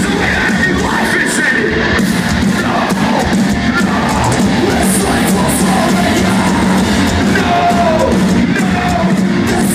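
Metalcore band playing live at full volume, with distorted guitars, drums and vocals, heard from within the audience.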